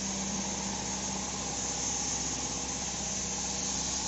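Steady low machinery hum, idling and unchanging, with a constant high hiss over it.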